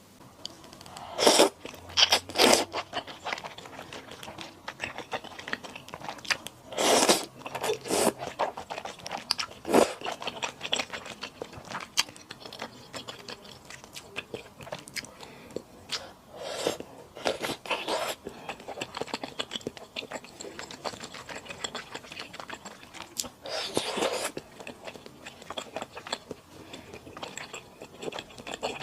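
Close-miked eating of malatang with thick rice noodles: steady chewing and biting, broken by about six louder bursts of slurping of noodles and broth.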